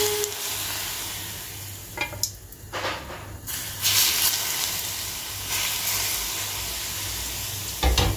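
Hot oil poured from a metal ladle over chopped garlic, red chilli and spring onion in a glass bowl, sizzling in waves that swell as each pour lands and then die down. A few short knocks come through the sizzle, about two seconds in and again near the end.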